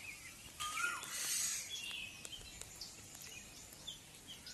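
Birds chirping: short scattered calls, some sliding in pitch, over faint outdoor background noise.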